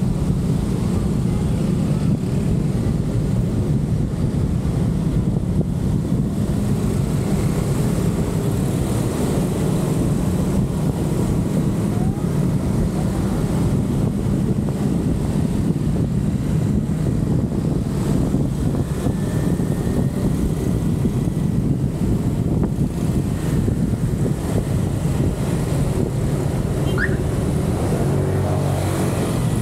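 Car being driven: a steady low engine and road-noise rumble with no change in pace.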